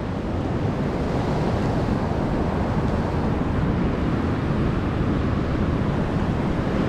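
Rough-sea surf washing steadily onto the beach, with wind on the microphone.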